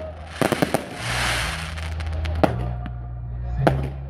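Aerial fireworks bursting: a quick cluster of sharp cracks about half a second in, a crackling hiss after it, then two single louder bangs later on.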